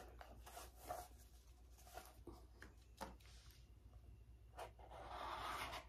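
Faint rustling and light taps as a ribbon is untied from a small cardboard gift box and the box is handled, with a longer soft rustle near the end.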